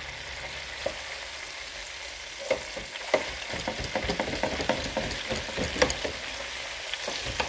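Breaded chicken wings deep-frying in hot oil in a deep fryer basket: a steady sizzle with crackling pops, which grow busier from about two and a half seconds in.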